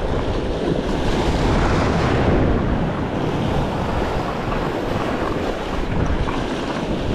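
Waves washing and breaking against the rocks of a jetty, with wind buffeting the microphone in a steady rushing noise.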